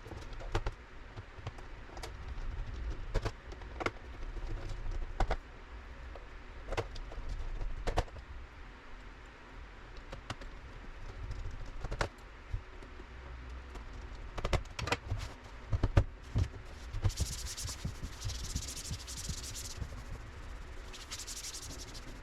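Light clicks and taps of a laptop and its parts being handled, scattered over a low rumble, with two short stretches of hiss near the end.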